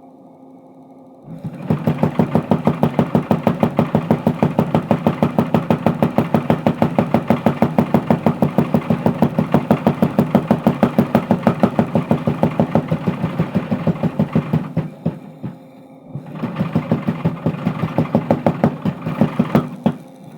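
Mechanical power hammer forging a steel bar: its motor hums, then the ram pounds in a rapid, even stream of blows, about five a second. The blows stop for about a second and then resume for a few seconds more.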